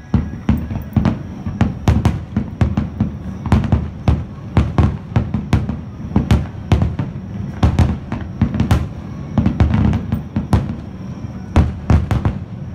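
Aerial fireworks shells bursting in rapid succession, a dense run of sharp bangs about two to three a second over a continuous low rumble, typical of a display's climax barrage.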